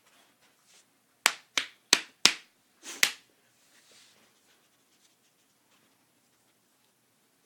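A run of coughs: four short, sharp coughs about a third of a second apart, then one longer cough after a short pause.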